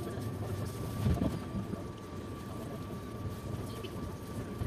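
Steady rumble of a moving passenger train heard from inside the coach, with an iron-ore freight train's hopper cars passing close alongside. A thin steady whine runs through it, and there is a heavier jolt about a second in.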